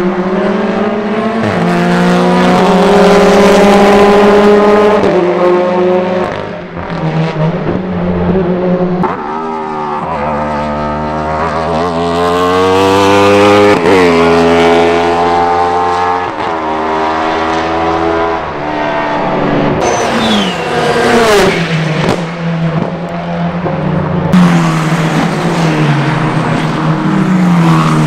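Racing car engines at close range as several cars pass in turn, each engine note climbing as it accelerates up through the gears and dropping in steps on downshifts under braking.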